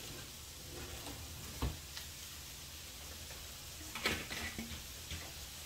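Kitchen utensils and cookware being handled: one dull thump about a second and a half in, then a quick cluster of clicks and knocks near the end, over a steady faint hiss.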